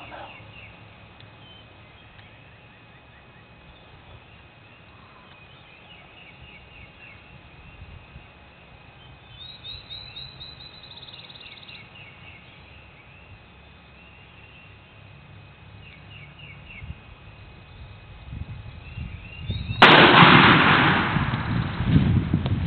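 Quiet field ambience with a songbird trilling a few times, then near the end a single loud shotgun shot, the shot that takes a wild turkey gobbler. Loud rustling and handling noise follows straight after the shot.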